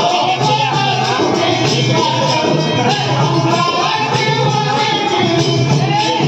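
A bhajan group singing a devotional bhajan, with jingling metallic percussion keeping a steady, fast beat under the voices.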